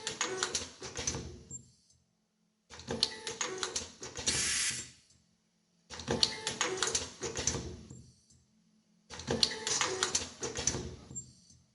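Automatic nylon zipper film welding machine running its cycle: bursts of rapid mechanical clicking and clattering about two and a half seconds long, repeating roughly every three seconds with short pauses between. A brief hiss sounds in the middle of the second cycle.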